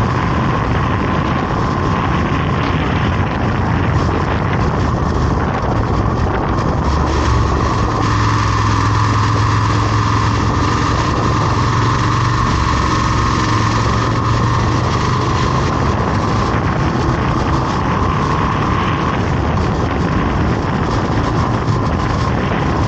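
A motor vehicle on the move: steady engine and road noise with wind on the microphone, and a deeper engine hum that swells for several seconds in the middle.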